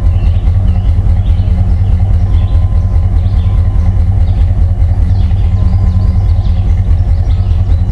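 Ford Bronco's engine running, heard from inside the cab: a steady low rumble with a fast, even pulse.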